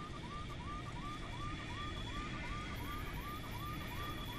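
Cockpit warning alarm sounding as a rapid electronic chirp, about three short rising chirps a second, over a steady low rumble of aircraft noise.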